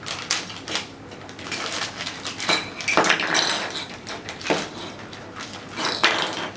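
Hard plastic clicking and clattering as the back cover of a power adapter is opened and its plastic parts are handled: a string of sharp clicks and knocks, several louder near the middle and end.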